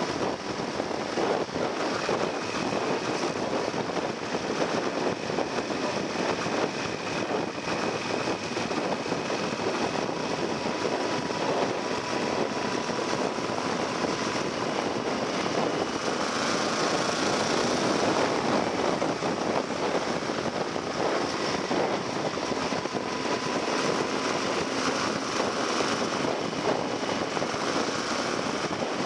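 Yamaha XT1200Z Super Ténéré's parallel-twin engine running steadily at riding speed, heard through a steady rush of wind over the microphone.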